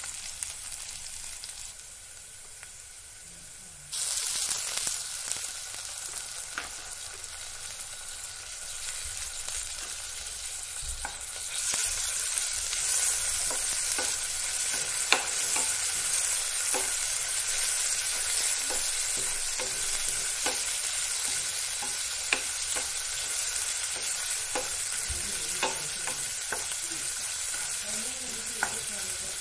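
Sliced onions sizzling in hot oil in a non-stick frying pan, stirred with a wooden spatula that taps and scrapes against the pan. The sizzle gets louder about four seconds in and again around twelve seconds in.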